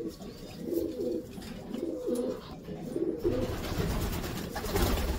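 Racing pigeons cooing in the loft: a string of low, wavering coos through the first three seconds, with a low rumble in the second half.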